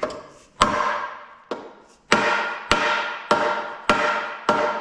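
Hammer blows striking a Detroit Diesel 2-53 flywheel housing to drive it onto stubborn dowel pins. There are about eight ringing metallic strikes, evenly paced a little more than one a second.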